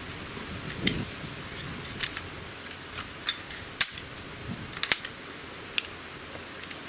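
Hatsan Torpedo 150 Sniper gas-piston air rifle being cocked and loaded: a string of sharp metallic clicks and clacks from the under-lever and breech mechanism, about seven in all, with the loudest near the middle, over a steady background hiss.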